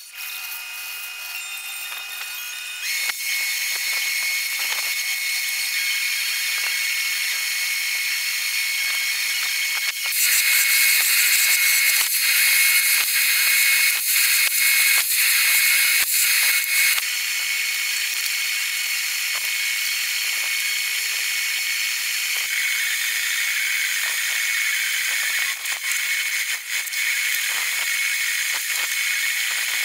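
A drill motor runs steadily with a high whine, spinning a brass wire cup brush. From about ten to seventeen seconds in, a metal part is pressed against the brush, adding a louder scratchy hiss.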